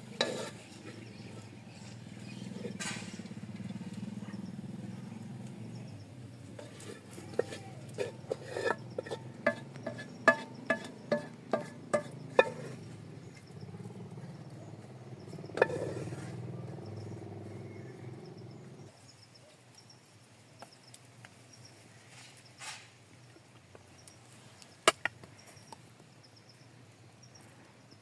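A quick run of sharp metallic clinks, about a dozen over five seconds, typical of metal utensils knocking on cookware, over a low steady background; a couple of single knocks follow, then a quieter outdoor background with faint insect chirping.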